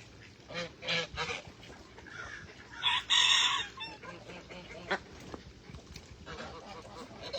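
Poultry calling: a few short calls, then one loud, harsh call lasting about a second, about three seconds in.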